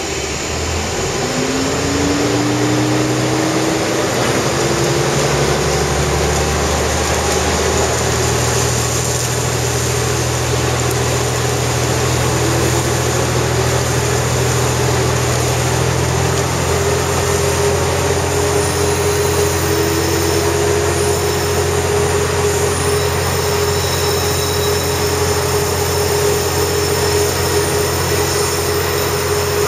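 Diesel railcar's engine rising in pitch as the train pulls away, then running steadily under power, over the rumble of wheels on track.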